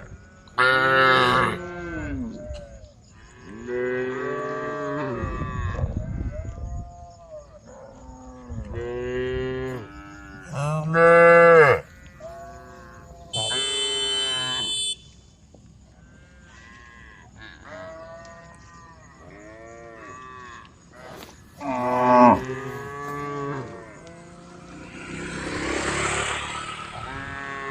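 Cows mooing again and again, one long call after another, some overlapping, with the loudest about eleven and twenty-two seconds in: cattle calling to the herd. A short high-pitched tone sounds about halfway through, and a swelling rush of noise comes near the end.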